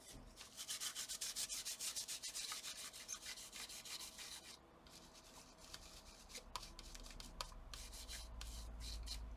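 Quick back-and-forth rubbing strokes, several a second, as leftover thermal paste is scrubbed off with alcohol; the strokes are brisk for about the first four seconds, then lighter and sparser.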